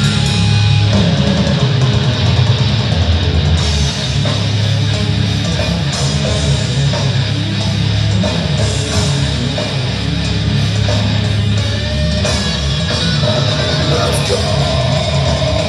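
Heavy rock band music played live: two electric guitars over a pre-recorded backing drum track.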